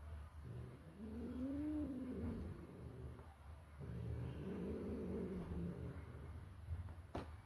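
A cat giving two long, drawn-out meows, each rising and then falling in pitch, a couple of seconds apart. A single sharp click comes near the end.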